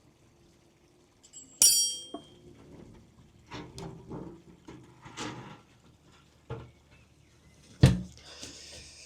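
Metal tools and parts being handled: a sharp metallic clink that rings briefly, a scatter of lighter knocks and rattles, then a heavy thump near the end followed by a short hiss.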